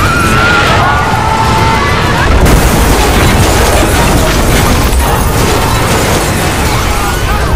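Heavy, continuous rumbling and crashing of collapsing buildings, a disaster-film sound effect. Wavering high tones run over the first two seconds; about two and a half seconds in, the rumble grows fuller and louder.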